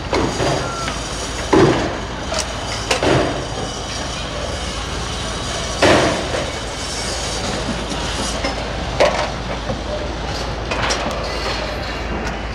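Construction site din: a steady mechanical background noise broken by sharp knocks and bangs every few seconds, the loudest about one and a half seconds in and about six seconds in.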